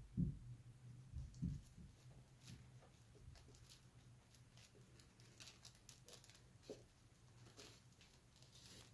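Faint rustling and light crackly ticks of rolled paper-vine tubes being worked by hand into a woven paper basket, with two soft bumps near the start, over a faint steady low hum.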